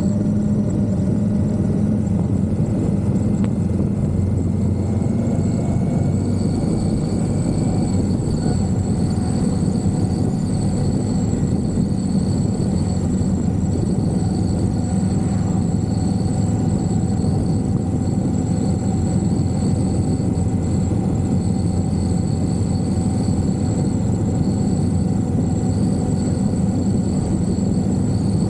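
Indian Scout motorcycle's V-twin engine running at a steady cruising speed, a constant drone that holds one pitch throughout.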